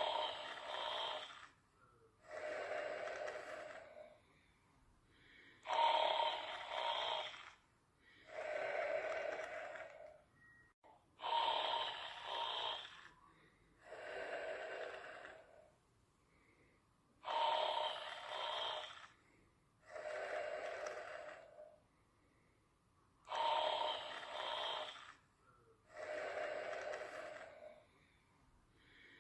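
Slow, even snoring. About five breaths arrive roughly six seconds apart, and each is a pair of sounds: a brighter, hissier one, then about two seconds later a lower, duller one.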